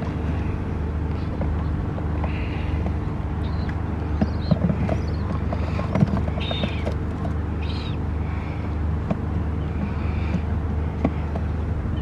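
Gulls calling in short, repeated cries, about one a second, over a steady low rumble. Between about four and six seconds in, a run of sharp knocks and clicks as cardboard carrier boxes are handled and their flaps opened.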